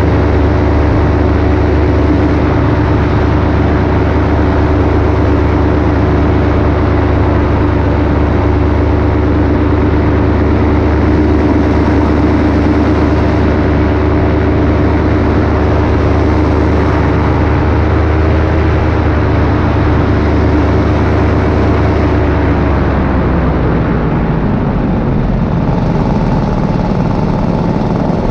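Paramotor engine and propeller running steadily under power in flight; about 23 seconds in the engine note falls and settles lower as it slows down.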